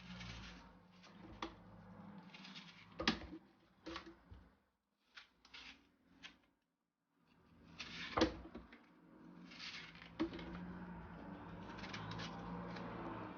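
Kitchen handling sounds as chopped onions, spring onions and garlic are put into a blender jar: scattered knocks and taps with short rustles, two sharper knocks about 3 and 8 seconds in, then a steadier faint noise near the end.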